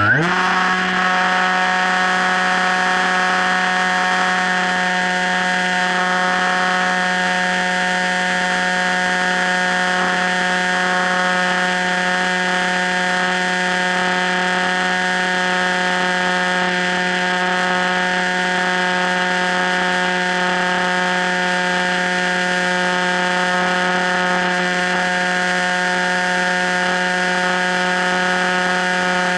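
Electric motor and propeller of an FPV Raptor RC plane whining at a steady, constant throttle. The pitch rises as it spins up at the very start, then holds unchanged.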